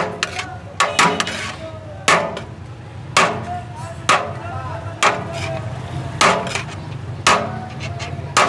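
Sharp, evenly spaced knocks about once a second, nine in all, over a steady low hum.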